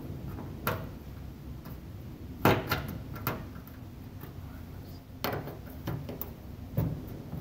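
A handful of irregular sharp clicks and knocks from the upper engine cowling of a Cessna 177RG being handled and worked loose from its quarter-turn fasteners, over a low steady rumble.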